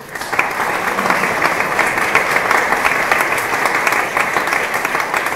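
Audience applauding: many hands clapping in a dense, even wash that swells in the first half second and then holds steady.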